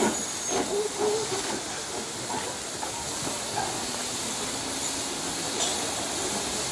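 Steady hiss of steam escaping from the LNER D49 4-4-0 steam locomotive No. 62712 Morayshire as it stands in the station.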